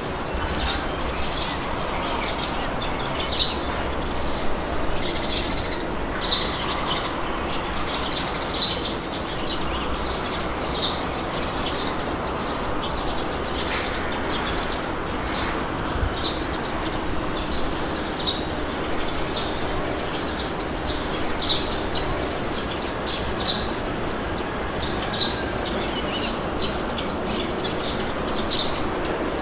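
Steady wind blowing with a low rumble, while birds chirp in short, frequent calls throughout.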